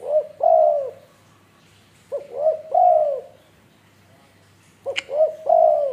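Spotted dove cooing: three phrases about two and a half seconds apart, each a few quick short coos running into a longer arching coo.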